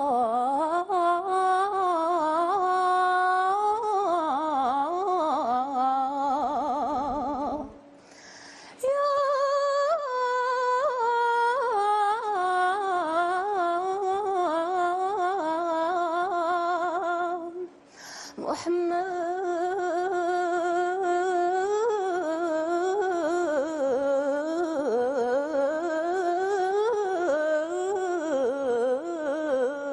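Woman singing a Moroccan Gharnati mawwal: long melismatic phrases with held, wavering notes and vibrato. There are two short pauses for breath, about eight and eighteen seconds in.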